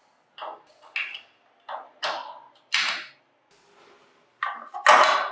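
Vespa carburettor air filter and its cover being handled and fitted into place by gloved hands: a run of short scrapes and knocks of metal and plastic parts, the loudest near the end.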